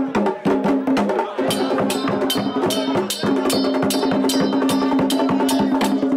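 Haitian Vodou ceremonial drumming on tall hand drums, with a sharp struck beat repeating about two to three times a second over a chorus of voices singing.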